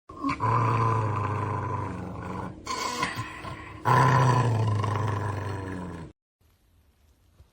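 An animal roaring: two long drawn-out roars, each loudest at the start and fading, the second starting about four seconds in. The sound cuts off abruptly about six seconds in.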